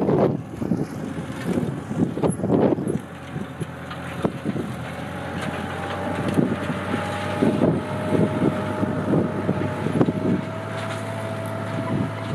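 Fortschritt ZT tractor's diesel engine running steadily, with wind gusting on the microphone. A steady whine joins in about five seconds in.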